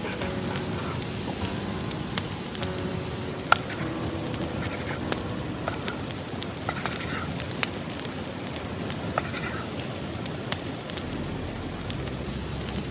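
Wood campfire crackling steadily, with scattered sharp pops.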